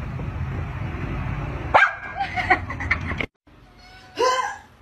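Dog barking sharply about two seconds in, followed by a few short yips over a low background rumble. Near the end comes one short, high, pitched call.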